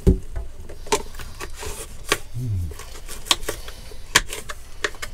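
Kitchen knife slicing red peppers on a plastic chopping board: sharp, irregular taps of the blade striking the board, roughly a second apart, with lighter cuts between.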